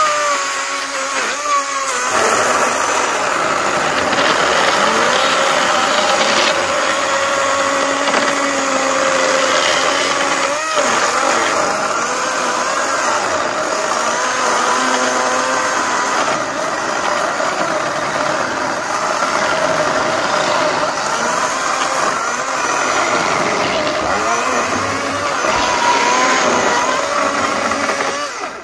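Greenworks 80V battery chainsaw running continuously as it cuts through oak slabs, a steady electric motor-and-chain whine whose pitch sags and recovers as the chain loads in the wood. The saw stops abruptly at the very end.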